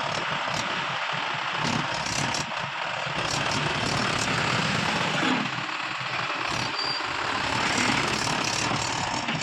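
Heavy diesel machinery engine running with a low, uneven throb, under a dense haze of noise and frequent short clattering clicks.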